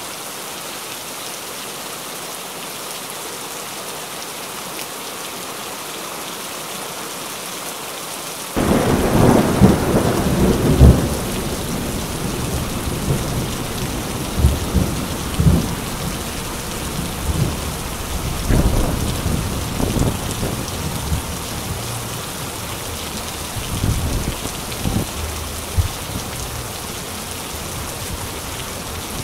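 Steady hiss of heavy rain, then from about eight seconds in, irregular loud low gusts of storm wind buffeting the microphone over the rain, with a run of stronger thumps near the start of the gusts.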